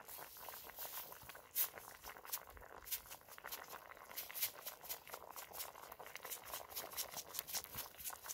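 A pan of spicy chicken stew boiling over a small wood fire, with many quick, irregular pops and crackles.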